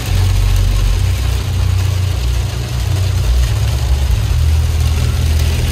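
Car cabin noise while driving on a rain-soaked road: a steady low engine and road drone with a hiss from the wet tyres and rain on the windscreen. The drone dips briefly about two and a half seconds in.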